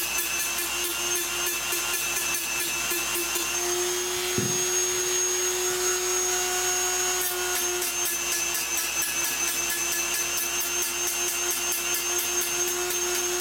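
High-speed rotary tool with a cut-off disc running with a steady whine as it grinds off the rivets of a sheet-metal case. About four seconds in there is a click and the pitch steps up slightly.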